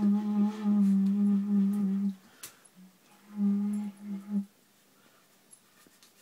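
A low held note with overtones, steady in pitch, that stops about two seconds in and sounds again for about a second near the middle.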